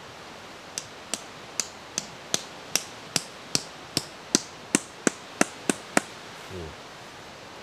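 A tent stake being hammered into the ground: about fifteen sharp knocks, roughly two to three a second, coming a little faster toward the end and then stopping.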